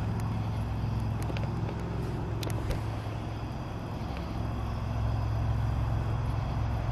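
Steady low engine drone of a motor vehicle, swelling slowly, with a few faint, brief sharper sounds on top.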